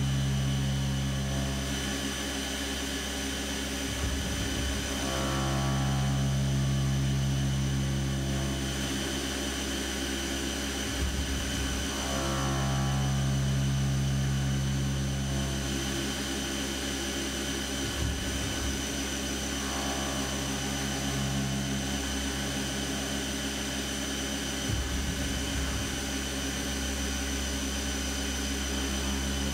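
Fadal CNC vertical mill machining an aluminum footpeg under flood coolant: steady spindle whine and coolant spray, with a deeper hum that swells and fades in cycles of about seven seconds and a brief rattle between cycles.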